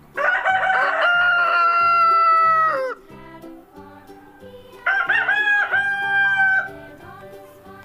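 A rooster crowing twice: a long crow of nearly three seconds that falls slightly at its end, then a shorter crow about five seconds in. Quiet background music with a steady beat runs underneath.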